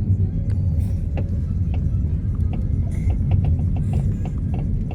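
Steady low drone of a car's engine and tyres heard from inside the moving car, with scattered small clicks and rattles over it.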